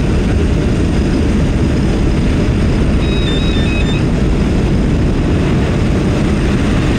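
Steady drone of the jump plane's propeller engine heard inside the cabin in flight. About three seconds in, a short run of faint high electronic beeps sounds over it.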